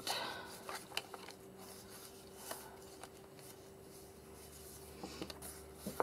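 Pages of a thick handmade paper journal being leafed through: faint paper rustling with a few soft taps and clicks, the loudest near the end.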